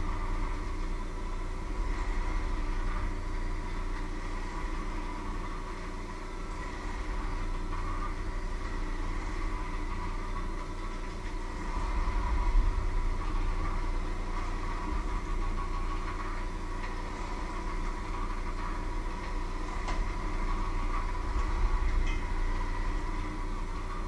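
Electric hand mixer running without a break, its beaters working through a bowl of food; the motor holds a steady pitch, rising and falling slightly in loudness as it works.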